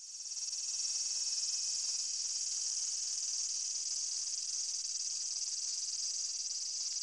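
Crickets chirring in a steady, high-pitched trill that fades in over the first second.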